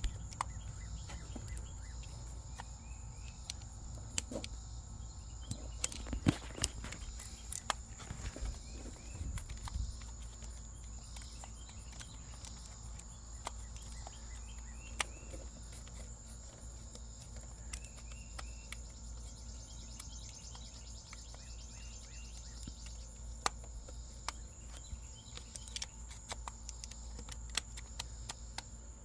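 Scattered light clicks and knocks of hands working plastic glow plug connectors and wiring in a diesel engine bay, busiest in the first ten seconds, over a steady high-pitched insect drone and a low hum.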